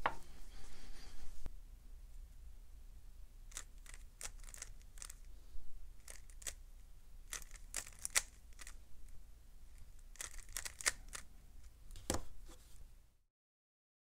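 Plastic 3x3 speed cube being turned by hand: quick clicking and clacking turns in irregular clusters, several per second at times, as its layers are rotated.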